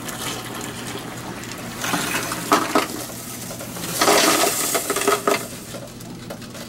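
Dirty soapy water pouring from a rotary tumbler drum into a stainless steel pot, then .43 Mauser brass cartridge cases and stainless steel tumbling pins sliding out and clattering into the pot in two louder rushes, about two and four seconds in.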